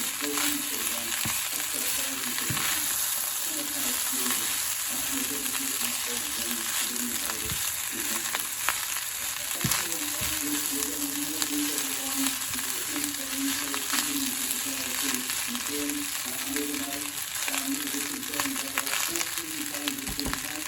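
Fried rice sizzling steadily as it is stir-fried, with scattered sharp clicks of the utensil against the pan.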